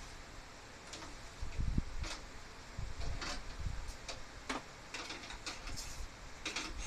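A string of irregular light clicks and knocks, coming more often in the second half, with a few low thuds about a second and a half in.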